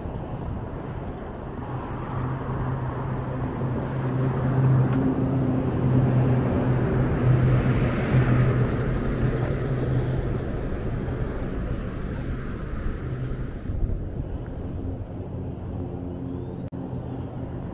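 A motor vehicle passing by: a steady engine hum with road noise swells over several seconds, loudest near the middle, then fades away.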